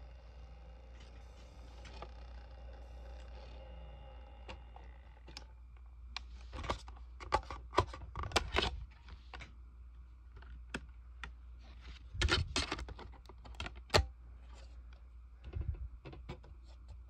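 Plastic DVD case being handled and opened: bursts of clicking and rattling plastic starting about six seconds in, with single sharp clicks between them.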